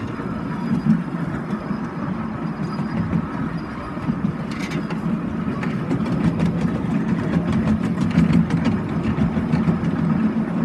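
Miniature railway train rolling along the track: a steady low rumble of the wheels on the rails, with rattling and clicking that grows more frequent from about halfway through.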